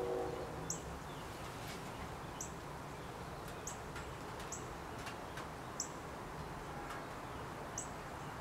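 A bird chirping: about six short, high chirps at uneven gaps, over a steady low hiss of room noise.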